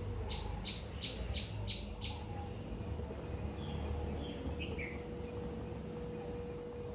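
A bird calling: six short, evenly spaced notes in about two seconds, then a few short falling notes about four seconds in, over a low steady rumble.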